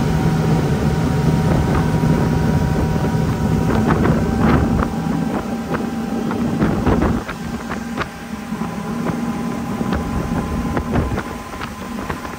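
Motorboat engine running steadily under way, with wind buffeting the microphone and water splashing against the hull. The engine drone gets quieter about seven seconds in.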